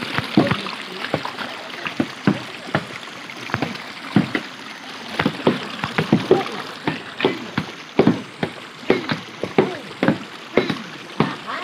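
Shallow river water splashing irregularly, several sharp splashes a second, over the steady rush of flowing water.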